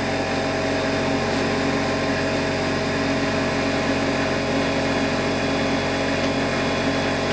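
Cordless reciprocating saw running steadily at full speed as it cuts through thick plywood, its motor hum holding an even pitch and level.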